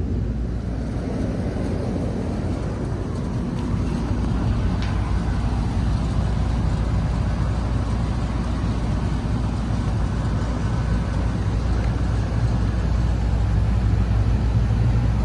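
Steady low hum and rumble of running rooftop air-conditioning equipment.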